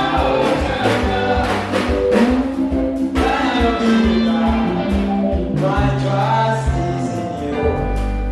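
Gospel worship song: singers holding long notes over a band with a steady drum beat and bass.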